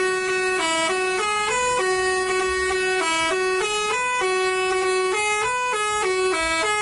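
Basuri 'telolet' musical bus horn playing a tune, one pitched tone stepping up and down through short notes without a break.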